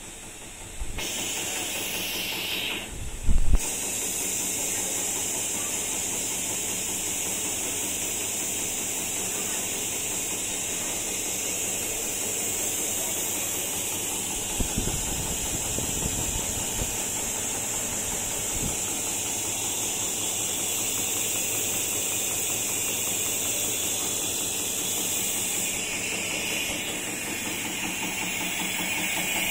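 Drinking-straw extrusion line running: a steady high hiss over a low machine hum. There is a thump about three seconds in.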